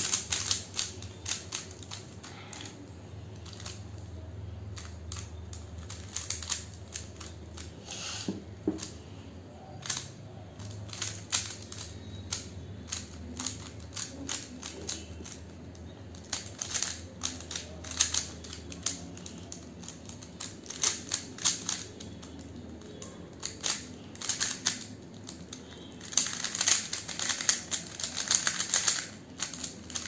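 A plastic 3x3 Rubik's cube being turned by hand: irregular flurries of clicks and clacks as its layers are twisted. The clicking is busiest in the last few seconds as the solve nears its end, over a faint steady low hum.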